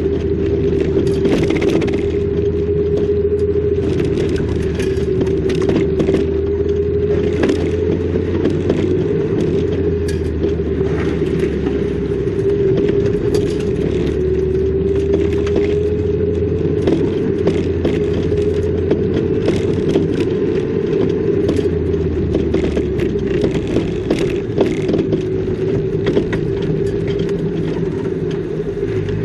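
Car driving on a rough, narrow road: a steady engine drone with a low rumble, and frequent small rattles and knocks as the tyres go over the uneven surface.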